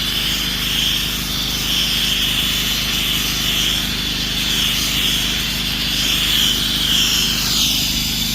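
Pressure washer's Predator 459 single-cylinder gasoline engine running steadily under load, with the hiss of the water spray from the wand over it.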